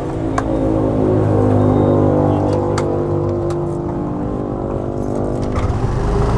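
Small motor-scooter engine idling close by, a steady hum that rises a little about a second in and then settles, with a few sharp clicks over it.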